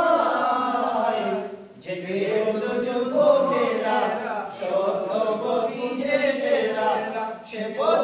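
A group of men singing a Bengali song together in unison, in long held phrases with a short breath pause about two seconds in and another near the end.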